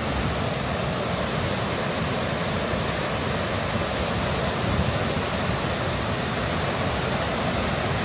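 Gullfoss waterfall rushing, a loud steady roar of falling water, with wind buffeting the microphone.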